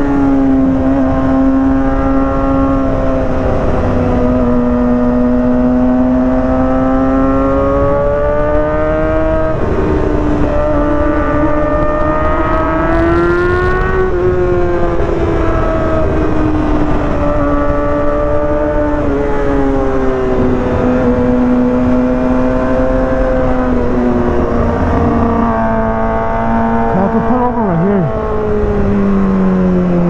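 2023 Kawasaki ZX-6R's 636 cc inline-four running hard under way, its pitch climbing and dropping with throttle and gear changes. Near the end the pitch falls steadily as the bike slows.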